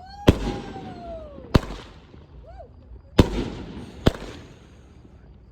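Fireworks going off: four sharp bangs a second or so apart, each trailing off in an echo, with a long falling whistle in the first couple of seconds.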